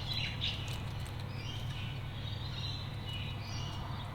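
Australian magpies giving a few short, high chirping calls, spaced out over a steady low background hum.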